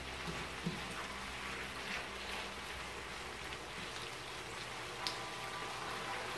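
Tofu and vegetables sizzling in a nonstick frying pan while a spatula stirs them, with a couple of light knocks of the spatula against the pan.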